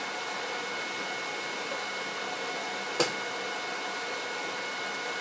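Steady whirring hiss of a running machine fan, with one sharp click about three seconds in.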